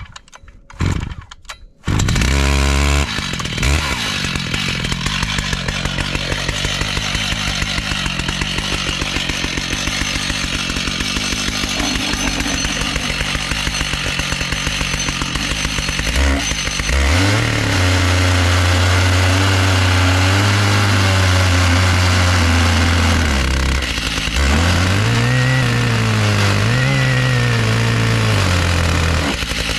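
Stihl MS 881 chainsaw with a 36-inch bar pull-started, catching about two seconds in, then running steadily. From about halfway its engine note drops lower and wavers, dipping and rising as the saw is worked through a black walnut log in an Alaskan chainsaw mill.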